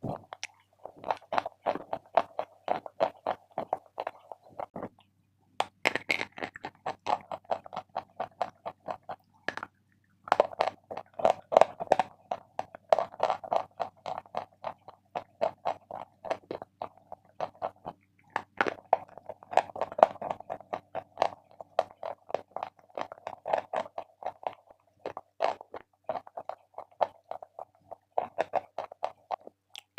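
A person chewing Big Love chalk close to the microphone: a fast, continuous run of crisp crunches, with two brief pauses about five and ten seconds in.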